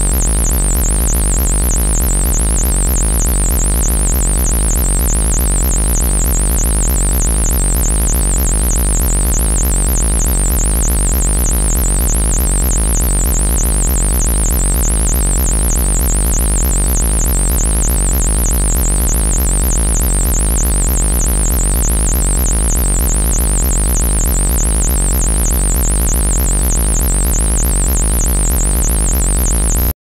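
Synthesized 'alien buzzer' sound effect: a loud, high-pitched wobbly siren tone warbling rapidly up and down without pause, over a constant low buzz and hiss.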